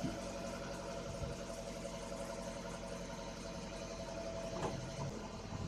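Toyota Avanza petrol engine idling steadily, heard at its stock exhaust tailpipe with no turbo whistler fitted.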